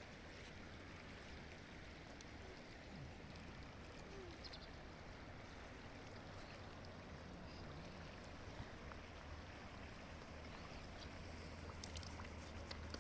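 Faint, steady rushing of a flowing river, with a few small clicks and a low rumble that swells near the end.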